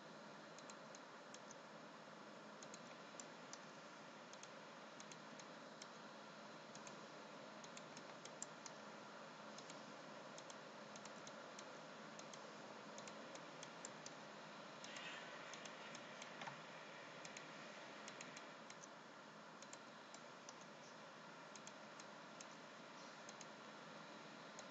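Faint, scattered computer mouse clicks over a steady low hiss of room tone, as seams are clicked onto the model in 3D modelling software.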